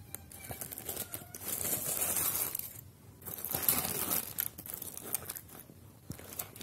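Aluminium foil crinkling and rustling as a foil-wrapped packet of cooked fish is pulled open, in two longer stretches of crackling with small clicks between.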